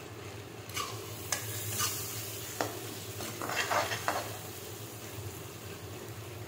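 Chopped tomatoes sizzling as they fry in oil in a metal kadhai, while a steel spoon stirs them and scrapes against the pan several times in the first four seconds. Afterwards the sizzle goes on with little stirring.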